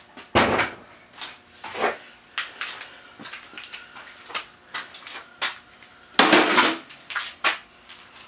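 Metal clanks and clinks as a go-kart engine mount and its parts are handled against the steel kart frame: a series of short knocks, with a louder clatter about six seconds in.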